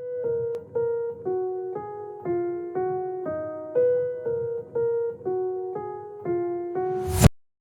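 Electric piano or keyboard playing a simple melody of single notes, about two a second, each dying away. A brief loud burst of noise about seven seconds in cuts it off abruptly.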